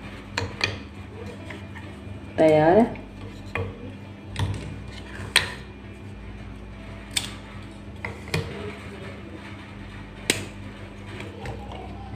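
Hardened chana chikki, a roasted-chickpea and sugar brittle, snapping as it is broken by hand along scored lines, its pieces clicking against the cutting board: about ten sharp, separate cracks. The crisp snap is the sign that the brittle has set hard.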